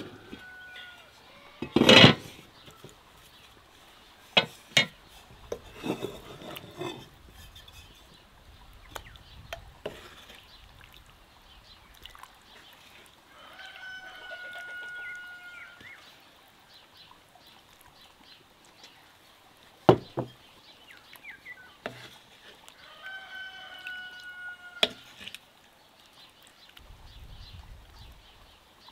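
Cast-iron pot and utensils knocking and clattering in a few sharp hits, loudest about two seconds in and again at about twenty seconds. A rooster crows twice in the background, around halfway and near the end.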